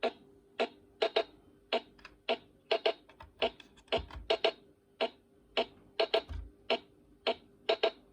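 BIGFUN BF-430A1 toy electronic keyboard playing its built-in waltz rhythm preset: crisp electronic drum ticks about twice a second, with a few low thuds, over a steady held tone.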